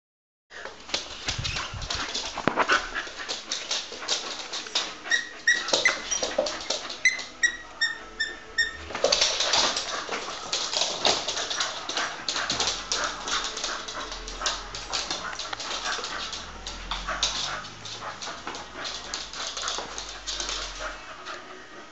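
Terrier cross mouthing and chewing a neoprene squid toy: a dense, uneven run of clicks and rustles, with a string of short high squeaks about five to eight seconds in.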